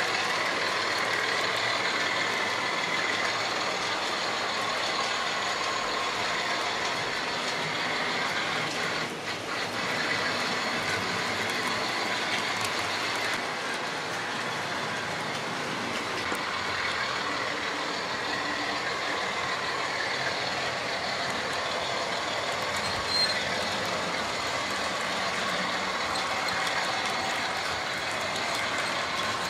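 Model railway trains running round a layout: the steady whir of small electric loco motors and wheels rolling over the track, with a single click about twenty-three seconds in.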